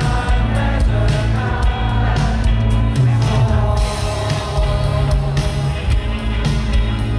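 Live rock band playing loud: a male lead singer singing over electric guitar and drums.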